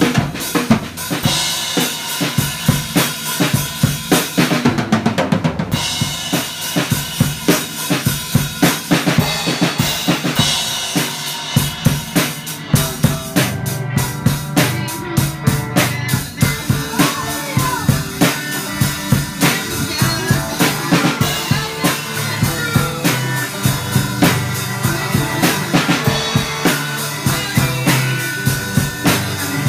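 Live rock band playing: a drum kit with kick drum, snare and cymbals keeping a steady beat, the loudest part, under electric guitars played through small practice amplifiers.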